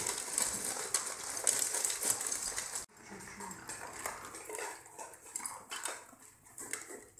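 Dogs eating from metal bowls on the floor, food and muzzles clicking and clattering against the metal with chewing. The clatter drops suddenly to a quieter level about three seconds in.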